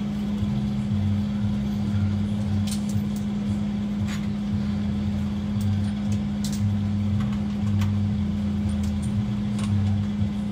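A steady low hum with a wavering lower drone, and scattered light clicks of hand tools on the transmission oil pan bolts.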